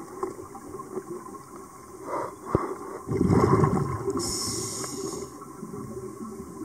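Underwater sound of a scuba diver breathing through a regulator: a loud, low gurgling rush of exhaled bubbles about three seconds in, followed by a brief higher hiss, over steady water noise.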